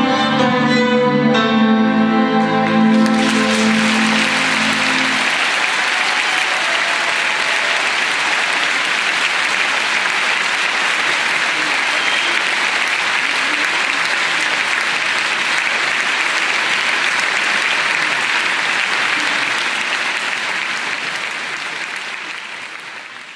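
An ensemble with bowed strings holds the closing notes of a piece. About three seconds in, a theatre audience breaks into applause, which runs steadily and fades out near the end.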